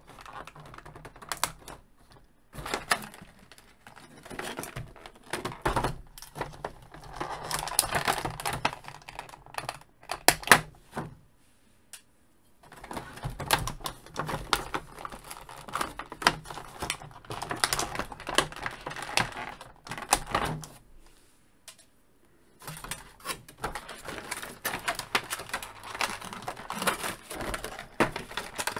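Plastic packaging tray clicking and crackling as an action figure is worked out of it and handled: a run of irregular sharp clicks and taps, broken by a few short pauses.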